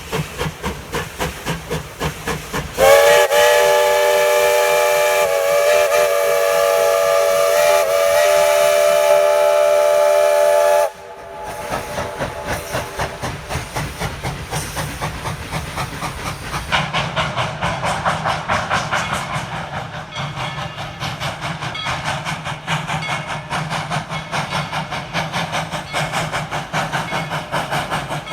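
Steam locomotive No. 190's multi-tone chime whistle blown once, long, for about eight seconds, wavering slightly in pitch before cutting off sharply. Before and after the whistle the locomotive's exhaust beats out a steady rhythmic chuff as it runs.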